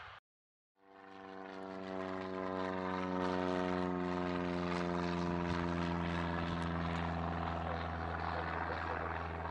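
Single-engine propeller light aircraft flying overhead, its engine and propeller droning steadily. The sound fades in about a second in and holds a strong set of tones that slowly fall in pitch as the plane passes.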